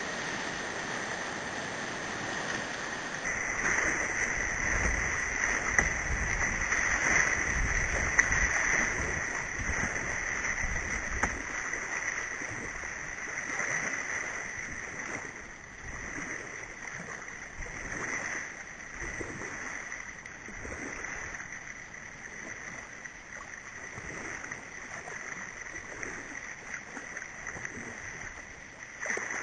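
Rushing whitewater of a small river rapid running at very high flow, a steady roar of water, loudest in the first ten seconds or so and then settling somewhat quieter.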